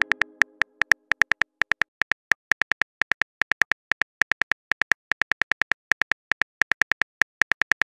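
iPhone on-screen keyboard key clicks as a message is typed, a quick, slightly uneven run of about five or six clicks a second.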